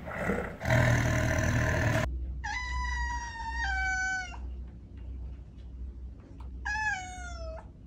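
A burst of harsh noise lasting about two seconds, then a cat meowing twice: two long, drawn-out meows, each sliding down in pitch.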